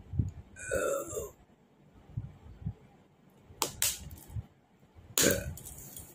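A person belching: one long pitched burp about half a second in that falls in pitch, followed by two short sharp sounds, one near the middle and one near the end.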